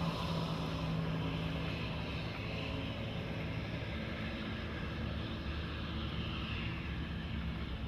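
The twin Rotax 4-TEC engines of a 2006 Sea-Doo Islandia 22 jet boat running under way, a steady drone with the rush of the jet spray and wake.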